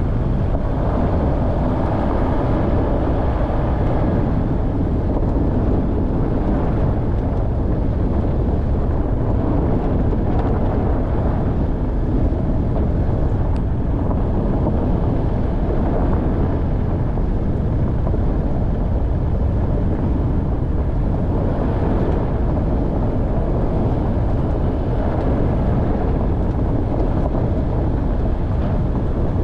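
Off-road vehicle driving on a mountain track: a steady run of engine and rolling noise with no sudden changes.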